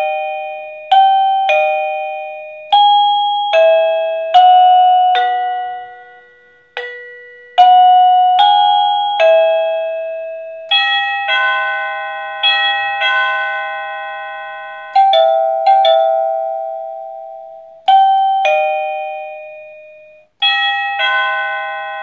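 Plug-in wireless doorbell receiver, set to maximum volume, playing through its built-in chime melodies one after another as its tune button is pressed: loud electronic bell-like notes, each struck and fading, in short ding-dong phrases whose tune changes every second or two.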